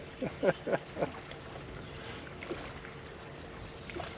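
Open-water ambience on a small fishing boat: light wind and water noise with a faint steady hum. A few short voice sounds come in the first second, while a hooked fish is being played on the rod.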